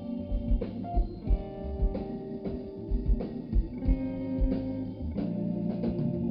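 Live blues band playing: electric guitar over bass, with a steady beat of low thumps.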